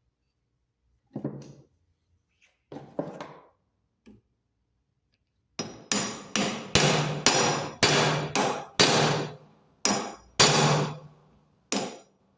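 Hammer blows driving a new washing-machine drum bearing into its seat through a spacer: two single blows, then a quick run of blows about three a second, each with a short metallic ring.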